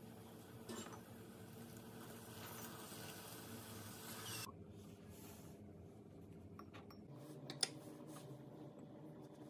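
Faint kitchen handling sounds: light clicks and taps over a steady low hum, with one sharper click about three-quarters of the way through. A background hiss cuts off suddenly about halfway.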